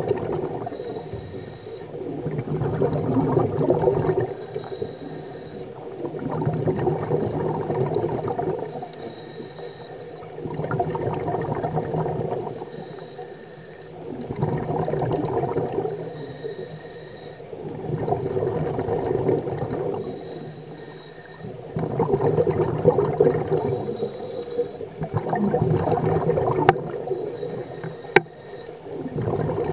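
Scuba breathing through a regulator underwater: a short hiss on each inhale, then a longer burst of bubbling exhaust, repeating about every four seconds. Two sharp clicks come near the end.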